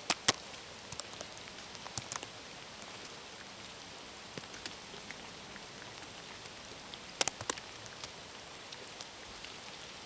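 Steady patter of wet snow and meltwater dripping through snow-laden trees during a nor'easter, with scattered sharp ticks and taps; a small cluster comes about seven seconds in.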